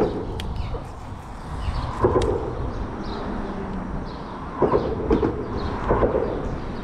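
Steady low rumble of road traffic crossing the bridge overhead, with several short clattering knocks.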